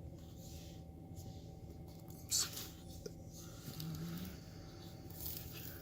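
Faint rustling and handling noise with one soft click, over a steady faint electrical hum.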